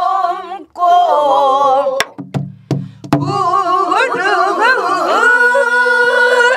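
Korean folk singing in the namdo style, one voice with a wide, wavering vibrato, ending on a long held note. Sharp drum strokes sound about two and three seconds in, with a low hum between them.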